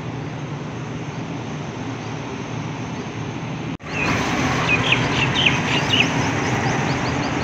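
A steady low hum, then, after a sudden cut about four seconds in, a small motorcycle running past on a wet road, with a run of short bird chirps over it.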